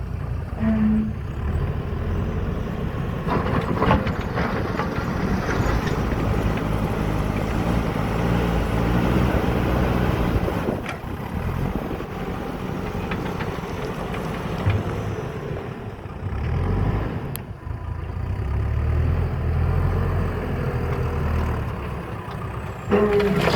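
JCB backhoe loader's diesel engine running and revving up and down as it works, with a few knocks and clatters along the way.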